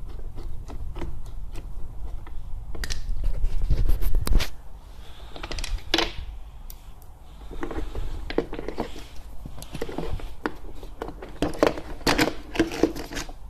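Scattered clicks, knocks and rattles of the hard plastic door module and window regulator of a MINI Cooper R56 being handled, with its wiring moved about. A louder low rumble comes about three to four seconds in.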